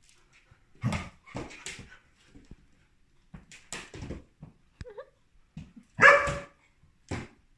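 Five-month-old German shepherd puppy barking and yelping in short bursts, with a brief whine about five seconds in; the loudest bark comes about six seconds in.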